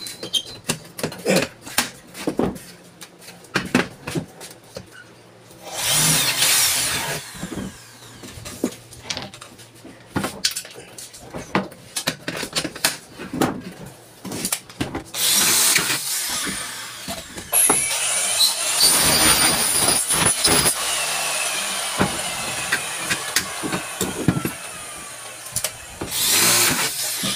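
Cordless drill running in several bursts of one to several seconds, each spinning up and winding down, driving into an aluminium cabinet door frame. Between the bursts, and through the first few seconds, there are sharp clicks and knocks of metal parts and tools being handled.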